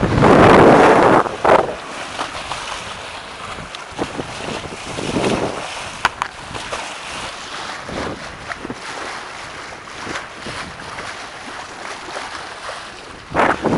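Wind buffeting the microphone, loudest for the first second and a half and again near the end, over the steady rush and splash of water along the hull of a sailing yacht under way.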